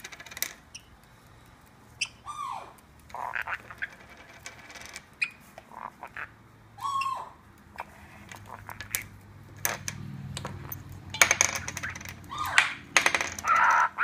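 Caique parrot giving a few short squawks, two of them falling in pitch, amid sharp clicking and tapping as it moves about on a marble ledge; the clicking grows thick and loud in the last few seconds.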